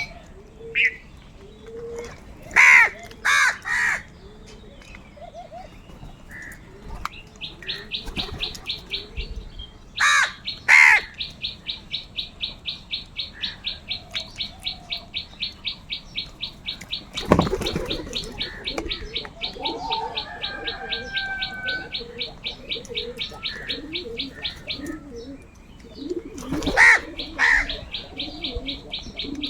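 Crows giving loud, harsh caws in short clusters of two or three, about three seconds in, about ten seconds in and near the end. Through the middle, a high chirp repeats quickly and evenly, about four times a second.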